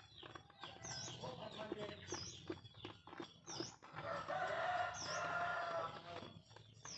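A rooster crows once, about four seconds in, lasting roughly two seconds. Short high chirps from another bird repeat about once a second, with a few light clicks of handling.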